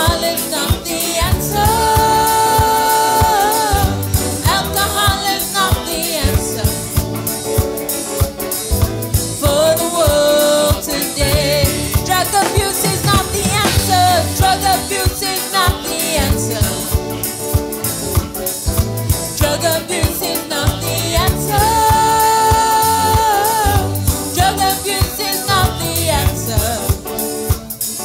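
Gospel worship song: a singer holds long, wavering notes over a band with a drum kit keeping a steady beat.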